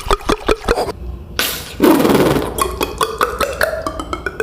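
Beatboxer's mouth-made sound effect: a quick run of sharp clicks, a breathy burst with a falling tone in the middle, then another fast run of clicks.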